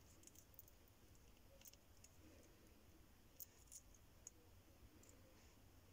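Near silence with faint, irregular sharp clicks from a Horsefield tortoise's beak biting and tearing a hand-held dandelion leaf, several over a few seconds.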